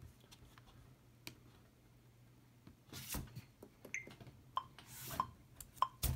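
Scattered faint clicks and taps of hands on music gear and the phone, in a quiet room, with a few short faint pitched blips in the last two seconds.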